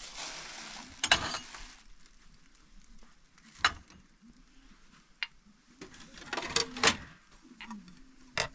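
Scattered sharp clicks and knocks, with a brief rushing hiss in the first second or so.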